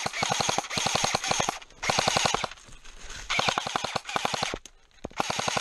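Airsoft guns firing on full auto: several rapid bursts of evenly spaced sharp cracks, separated by short pauses.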